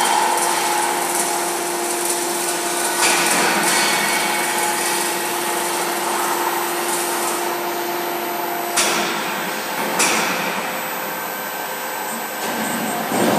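Steady noise of running industrial machinery, a continuous hiss and hum with faint steady tones, broken by two short sharp knocks about nine and ten seconds in.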